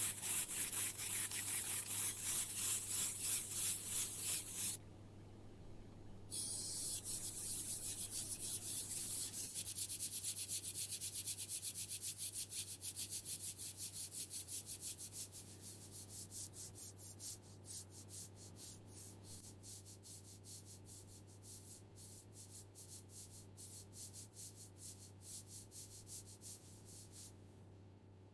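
Abrasive scrubbing on the rusted metal of an old clothes iron: quick, rhythmic back-and-forth scratchy strokes. There is a short pause about five seconds in, then the strokes come faster and grow fainter toward the end, over a steady low hum.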